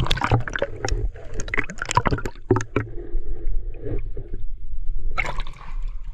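Water sloshing and gurgling around a boat hull and fishing line, with a quick run of splashy knocks in the first three seconds, over a steady low hum.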